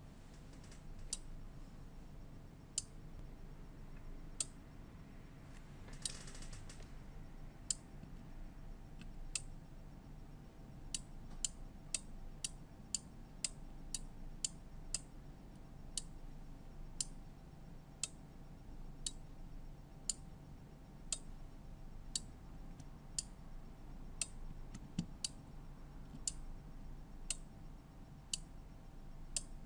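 Small PCB relays on an AVR-AP3 sequence relay board clicking as they switch on and off in sequence, a sharp click about every second. The clicks come closer together, about two a second, for a few seconds in the middle while the timing trimmer is turned with a screwdriver. A brief hiss about six seconds in.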